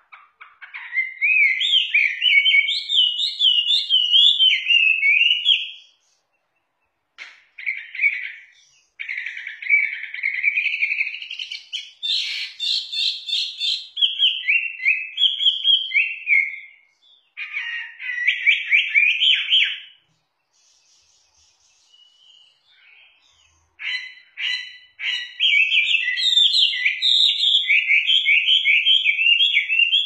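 Chinese hwamei (melodious laughingthrush) singing long, rapid, varied warbling phrases of rising and falling notes. It breaks off briefly about a fifth of the way in and goes quiet for a few seconds about two-thirds through before singing again.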